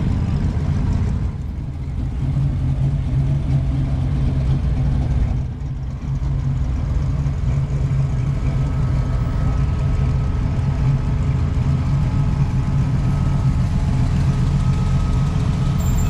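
Car engine running steadily, with two brief drops in level, about one and a half and five and a half seconds in.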